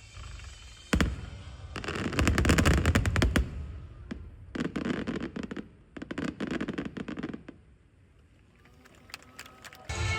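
Aerial fireworks: a single sharp bang about a second in, then three spells of dense crackling and popping that die away near the end.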